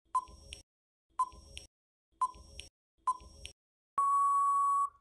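Quiz countdown timer sound effect: a short blip about once a second, four times, then a long steady beep of about a second as the timer runs out.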